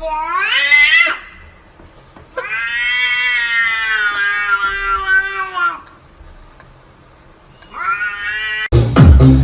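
A cat yowling in drawn-out meows: a rising call at the start, a long call of about three seconds in the middle, and a short rising call near the end. Loud electronic dance music with a beat cuts in just before the end.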